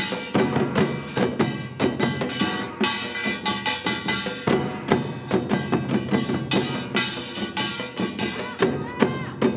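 Traditional Korean percussion ensemble playing a fast, dense rhythm of drum strokes, with ringing metallic tones sounding between the strikes.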